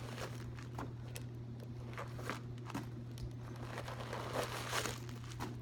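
Packing material crinkling and rustling in irregular bursts as it is pulled out of a new handbag.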